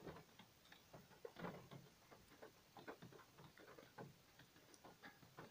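Faint, irregular light clicks and ticks of a screwdriver set's metal bits and red plastic carousel holder being turned over in the hand.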